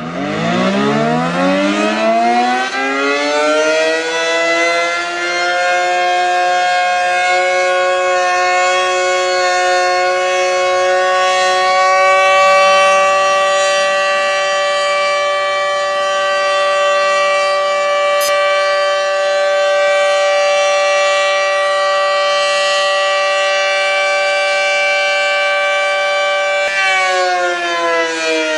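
Civil defense warning siren winding up, rising in pitch over about four seconds to a steady wail. It holds that pitch for over twenty seconds, then begins to wind down, falling in pitch, near the end.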